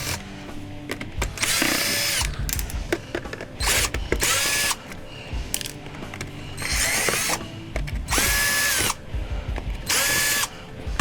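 Power drill-driver running in about five short bursts, each spinning up and winding down, as screws are backed out of a vacuum cleaner's housing.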